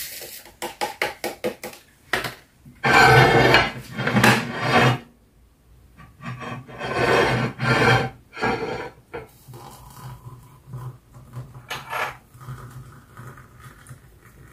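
Paper cappuccino sachet shaken and tapped over a ceramic mug, a quick run of light ticks, followed by louder noisy rustling and handling bursts. From about halfway through, hot water is poured from an electric kettle into the mug, a fainter steady sound.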